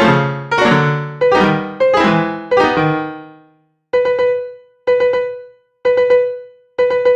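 Instrumental piano-sounding keyboard music. Five chords are struck in a steady pulse and left to ring out by about three seconds in. A single high note is then repeated four times, about once a second.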